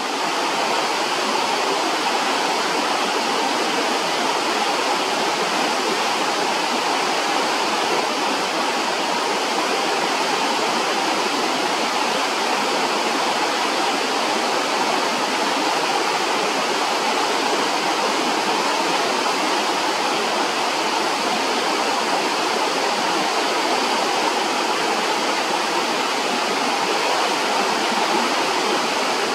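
Rushing river water, a steady, unbroken hiss and rumble of fast water running over rocks.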